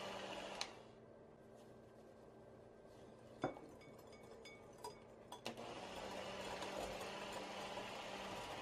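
Electric hand mixer whipping egg whites into meringue in a glass bowl. It switches off with a click about half a second in, and a few seconds of handling follow with one sharp tap and a few light clicks. The mixer starts whirring again a little past halfway.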